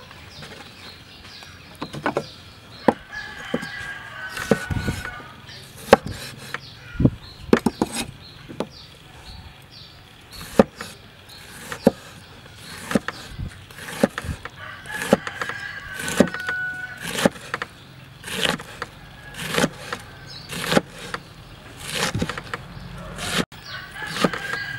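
Steel cleaver chopping pickled mustard greens on a wooden chopping board: sharp knocks at an uneven pace, about one or two a second. A rooster crows in the background about three times.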